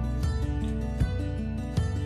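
Background music: a plucked-string tune with a new note struck about every three-quarters of a second.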